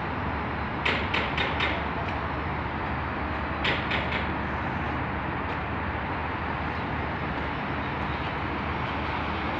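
Mobile crane's engine running steadily while it holds a load aloft. Quick runs of short knocks come about a second in and again about four seconds in.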